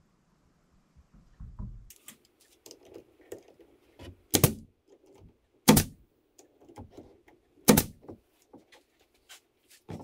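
Pneumatic brad nailer firing three sharp shots, about four, six and eight seconds in, driving 16-gauge brad nails into the glued corners of a wooden frame. Light knocks and clicks of the frame being handled come between the shots.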